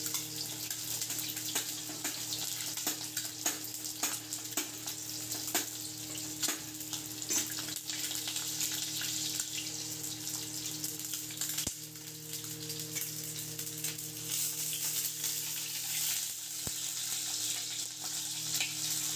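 Whole peeled boiled eggs frying in hot oil in a steel kadhai: a steady sizzle with frequent sharp pops and crackles as the eggs spit in the oil. A faint steady hum runs underneath.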